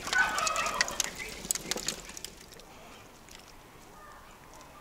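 Wood fire crackling in a masonry oven, with many sharp cracks for about two seconds, then dying down to a quiet background with faint birdsong.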